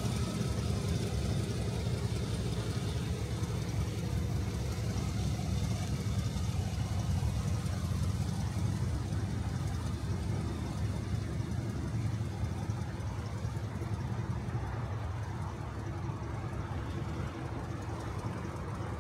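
1958 Cadillac Eldorado Brougham's 365 cubic-inch V8 idling steadily with an even low rumble, a little fainter in the second half.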